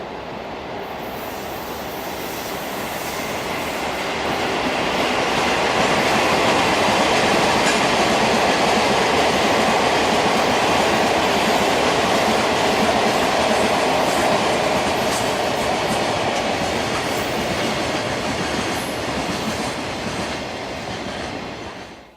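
A train passing close by at speed, its wheels clacking over the rail joints. The noise builds over the first few seconds, is loudest in the middle and cuts off abruptly near the end.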